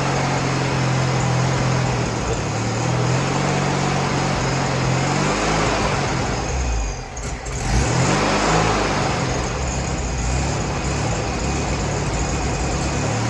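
Freshly rebuilt VW Beetle 1641cc dual-port air-cooled flat-four running on the floor. Its pitch shifts a few times, and about seven seconds in it dips briefly before picking back up, while the owners suspect a tired fuel pump is not delivering enough fuel.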